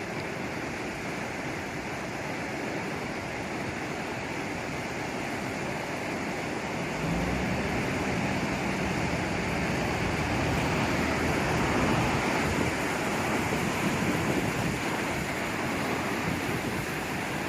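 Heavy surf breaking on a sandy beach, whipped up by a passing typhoon, with wind buffeting the microphone. It grows louder and gains a deeper rumble about seven seconds in.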